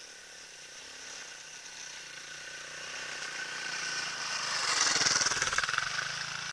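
Dirt bike riding up the track and passing close by, its engine getting steadily louder to a peak about five seconds in, then easing off a little.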